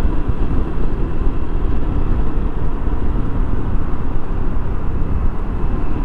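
Steady riding noise of a 2015 Honda PCX150 scooter: its single-cylinder engine running under a continuous rumble of wind and road noise.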